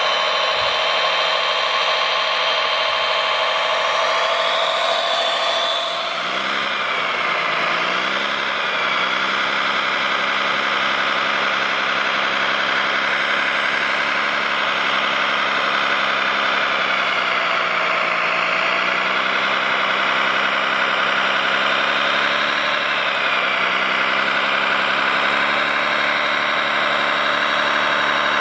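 Radio-controlled model construction vehicles running: a steady whine of motors and gears with a lower engine-like hum. The sound changes about six seconds in, then drifts slowly up and down in pitch.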